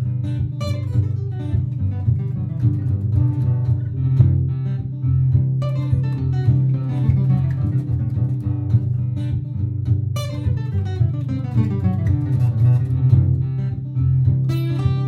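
Martin GPCPA4 acoustic guitar layered through a looper pedal: a repeating looped chord pattern with a steady low layer underneath and improvised plucked lines over it. Bright strummed chords come back about every four and a half seconds.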